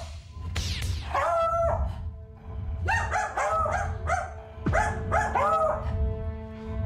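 A dog barking aggressively in long, drawn-out, howling barks, one about a second in and then a rapid run of them in the middle. Background music with a steady held note comes in about two seconds in, and falling swoosh effects sound near the start and in the middle.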